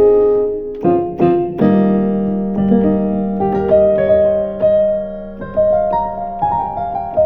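Roland VR-09 stage keyboard playing its European piano tone with EQ and effects added: a slow passage of held chords with single notes struck over them, fading near the end.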